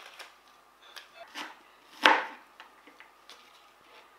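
Knife knocking on a plastic cutting board while working a red onion: a few scattered single taps, the loudest about two seconds in.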